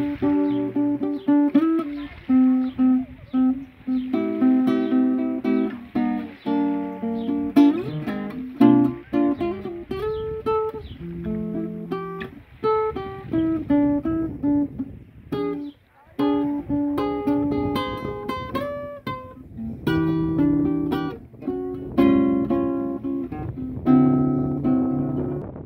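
Guitar improvisation: a run of plucked single notes and chords, with a brief pause about two-thirds of the way through.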